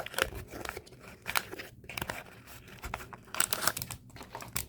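Packaging being opened and handled: crinkling and tearing of a small advent calendar box and an individually sealed cookie's wrapper. A string of small crackles and rustles, busiest about three and a half seconds in.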